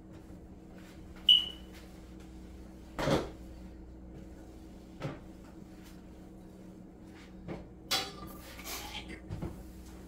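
Scattered knocks and clatter of household items being handled and set down on a kitchen counter during clean-up, with a sharp, briefly ringing clink about a second in and a run of clatter near the end. A steady low hum sits underneath.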